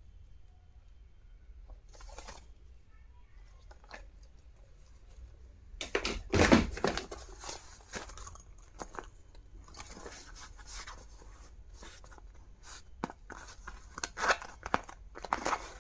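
Packaging being handled and opened: irregular crinkling, rustling and tearing, with the loudest bursts about six seconds in and again near the end.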